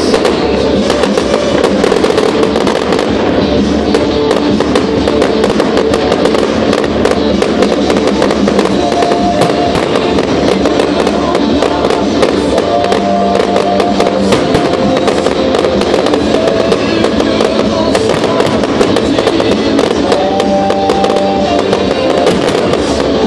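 A fireworks display crackling and popping in a dense, continuous run of sharp reports over loud music with held notes.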